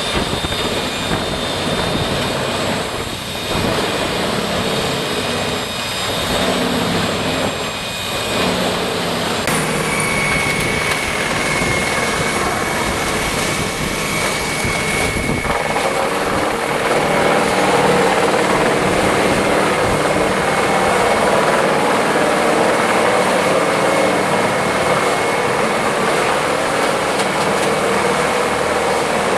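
Heavy engine-driven machinery running steadily and loudly, with an abrupt change in the sound about nine seconds in.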